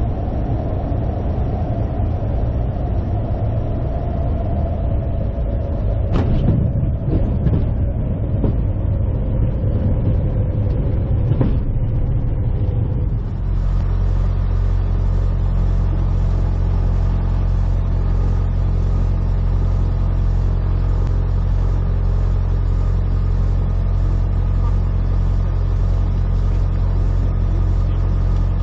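Cessna 172's piston engine and propeller heard from inside the cockpit: first at reduced power, its pitch slowly falling, with a couple of sharp knocks about six and eleven seconds in as the aircraft comes down onto the runway. Then, after an abrupt change, the engine runs steadily at high power for the take-off.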